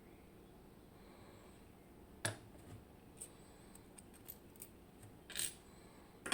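Small metal parts of a disassembled Miwa EC lock being handled: a sharp click about two seconds in, a few light ticks, a short clatter about five seconds in, and another click at the end.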